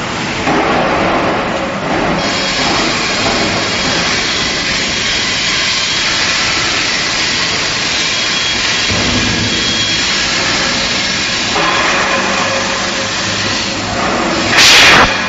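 Steady noise of steel pipe-mill machinery, with a loud hiss lasting about half a second near the end.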